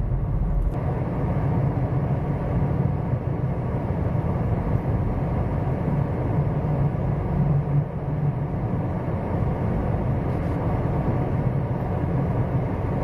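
Steady low rumble inside a car driving slowly on a snow-covered, slippery road: engine and tyre noise in the cabin.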